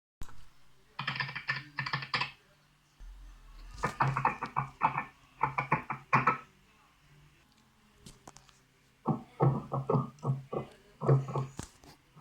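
Computer keyboard keystrokes in three quick bursts of clicking, each burst duller and lower than the one before, as the typing recording is played back slowed down.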